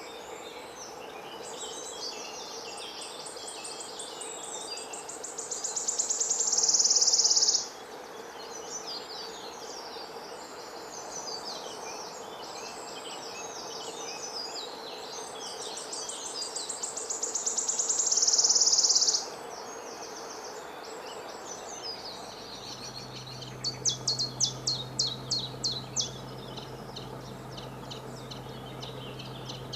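Birds singing: a rapid high trill swells louder for several seconds and stops abruptly, twice, over other birds chattering. Near the end comes a run of sharp, evenly spaced notes.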